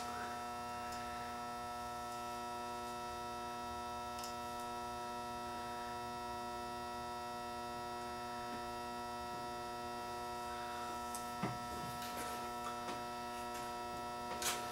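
Steady electrical mains hum, with a few faint small clicks near the end.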